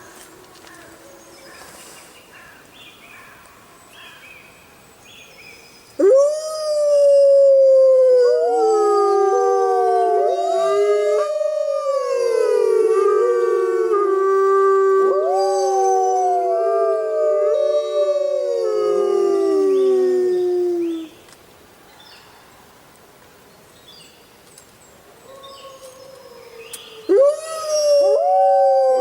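Pack of wolves howling in chorus, several howls overlapping and gliding up and down in pitch. Faint howls at first, then the loud chorus starts suddenly about six seconds in and breaks off after about fifteen seconds. It starts again near the end.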